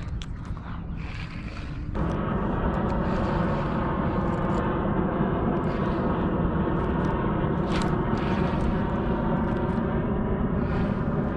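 A steady engine drone with an even, pitched hum, starting abruptly about two seconds in, after a few light clicks.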